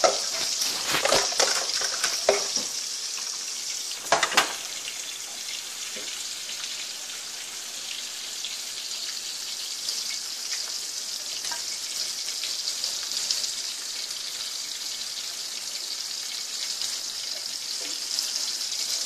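Pork chops frying in hot oil, a steady sizzle. In the first few seconds there are several knocks and rustles as fried chops on paper towels are handled.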